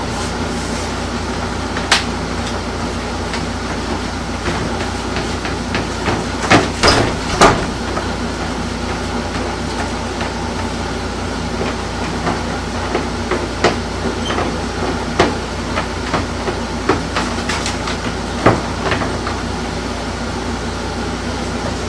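Dough being pressed and flattened on a counter: scattered knocks and thumps, the loudest cluster about six to seven seconds in, over a steady hum.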